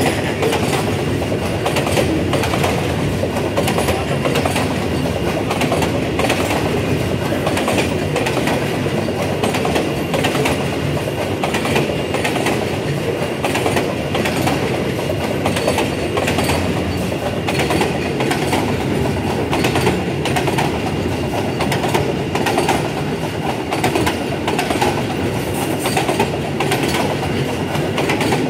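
Container flat wagons of a freight train rolling steadily past close by. Steel wheels rumble on the rails, with a continual clickety-clack of wheels crossing rail joints.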